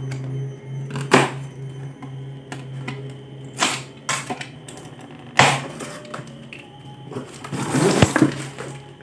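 Utility knife cutting plastic strapping and packing tape on a cardboard box: sharp snaps and cuts about a second in and again around three and a half to five and a half seconds in, then a longer scraping slice through the tape and cardboard near the end.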